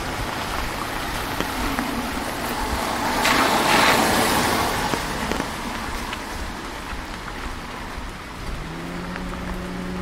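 Steady rain falling on a wet street, with scattered drips. A car's tyres hiss on the wet road as it passes, swelling and fading a few seconds in. Near the end a low steady hum starts up.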